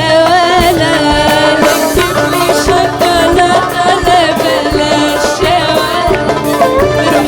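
Arabic pop song music: a wavering, ornamented melody line over a steady percussion beat.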